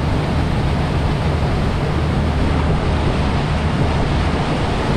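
Chao Phraya Express Boat's engine running steadily, with water rushing along the hull and wind on the microphone: a constant low rumble under an even wash of noise.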